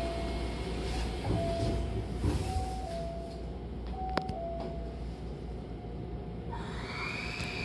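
Sliding doors of a Hankyu commuter train closing, with knocks as the leaves meet, over the steady hum of the stopped train. A simple electronic tone steps back and forth between two pitches until the doors shut, a sharp click follows, and near the end a whine rises and falls in pitch.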